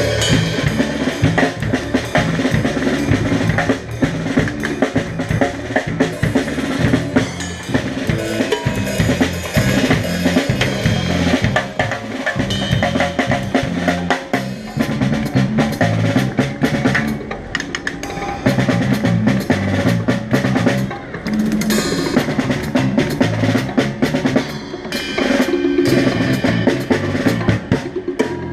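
Music led by a drum kit, with snare, bass drum and rimshots, played over a line of low bass notes that steps from note to note.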